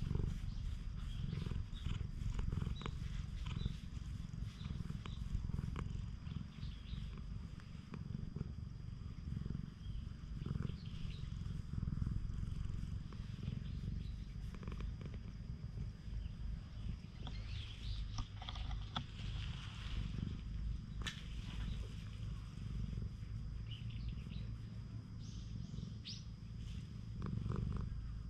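Stray cat purring steadily right at the microphone as it is stroked, with soft rustles and scuffs of the hand on its fur.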